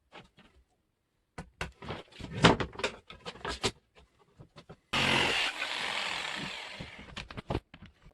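Wooden boards knocked and clattering as they are handled, then a few seconds of a power tool running on the wood, starting abruptly and fading out.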